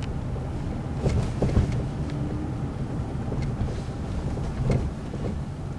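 Steady low rumble of a car driving, heard from inside the cabin, with a few short knocks about a second in and again near the end.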